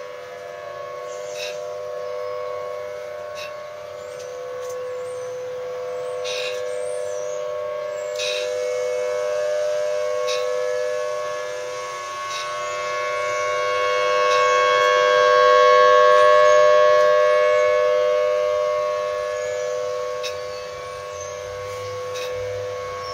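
Outdoor warning sirens sounding a steady Alert tone for a monthly test, chiefly a low-tone Federal Signal Thunderbolt 1000T, with several pitches held at once. The sound swells and fades, rising to its loudest about two-thirds of the way through before dropping back.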